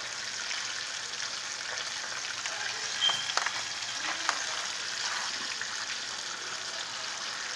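Hot cooking oil sizzling steadily as chicken fries. A few sharp clicks come about three to four seconds in.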